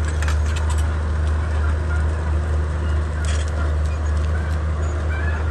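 Komatsu D31P bulldozer's diesel engine running steadily, with a few sharp clicks at the start and again about three seconds in.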